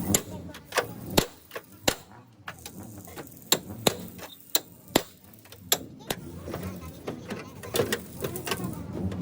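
Hammer blows tapping on car body sheet metal: about a dozen sharp knocks at uneven intervals, with a sparser stretch in the second half.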